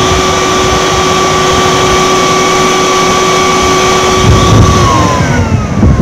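Siemens 1000 W vacuum cleaner motor running at full speed with a steady high whine during a test run after its damaged power cable was cut back and rejoined. About four and a half seconds in it is switched off and the whine falls as the motor spins down.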